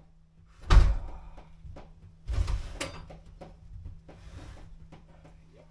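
A heavy thump about a second in, then clattering knocks and scraping from work in the attic overhead, over a faint steady low hum.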